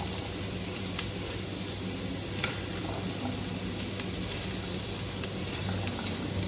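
Diced beetroot and onions sizzling in a hot frying pan while a silicone spatula stirs and turns them, with a few faint taps of the spatula against the pan.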